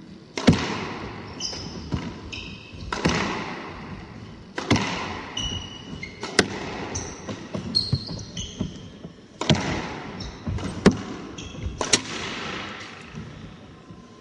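Squash rally: the rubber ball cracking off rackets and the court walls, about nine sharp hits roughly a second or two apart. Short high squeaks of court shoes on the wooden floor come between the hits.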